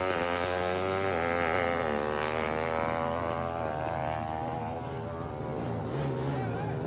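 Drag-racing motorcycle engine at full throttle running away down the strip, fading with distance, its pitch climbing and dropping back several times as it shifts up through the gears.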